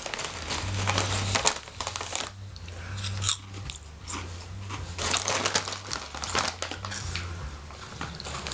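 Potato chips crunching as they are chewed close to the microphone, with a foil chip bag crinkling as it is handled near the end.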